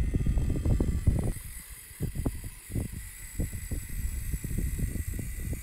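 High, slightly wavering whine starting about a second in: the motor of a cardboard RC Toyota FJ Cruiser's built-in hydraulic lift, running as it extends its support legs and raises the model. Under it are irregular low rumbles and knocks.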